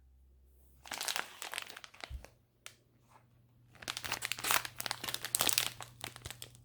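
Plastic packaging crinkling and rustling as it is handled, in two stretches: a short one about a second in, and a longer one from the middle onward.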